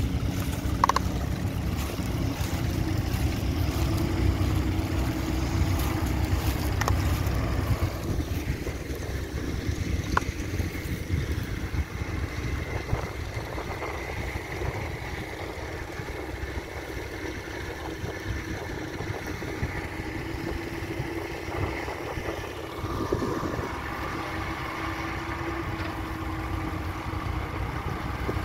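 Tractor engine running steadily, with wind noise on the microphone.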